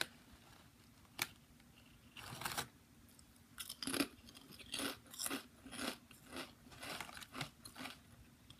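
Faint crunching as popped potato chips (Popchips) are chewed: short crisp crunches about twice a second in the second half, with a single click about a second in.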